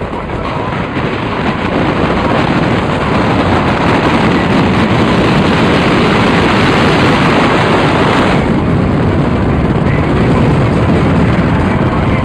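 Loud, steady wind buffeting and road rush from a car driving at speed with the side window open. No distinct engine note stands out. The hiss thins out about eight seconds in.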